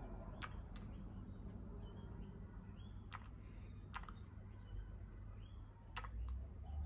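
A few faint, sharp clicks and taps from a plastic oil bottle being squeezed and its nozzle touching the metal inside an open sewing machine head while the felt wicks are oiled, over a low steady hum.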